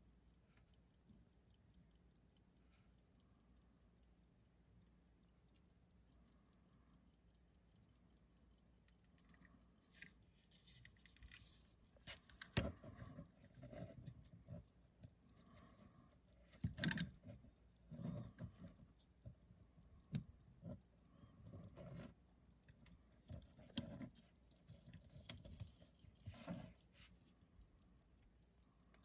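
Antique Elgin pocket watch running, with a faint, fast, even tick. From about ten seconds in, louder clicks and knocks come from the hinged hunter case being handled and its lids opened and shut.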